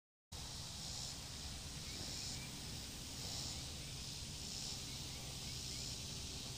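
Outdoor summer ambience that cuts in suddenly after a moment of silence: insects buzzing in high, regular pulses a little more than a second apart, with faint bird chirps over a low rumble.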